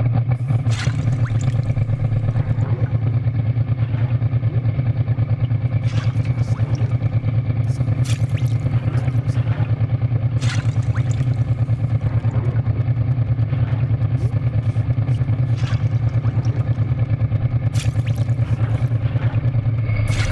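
Motorcycle engine idling with a steady low throb, with a few brief sharp clicks and clanks over it.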